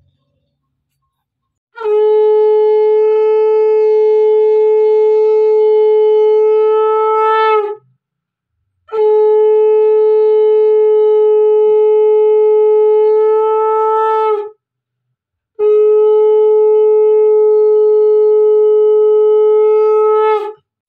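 Conch shell (shankha) blown in three long, steady blasts of about five to six seconds each, with short pauses between them; each blast sags slightly in pitch as it ends.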